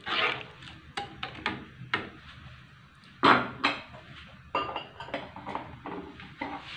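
Metal ladle clinking and scraping against a metal wok while coconut-milk gravy is stirred: a string of irregular knocks, with two louder ones a little past three seconds in.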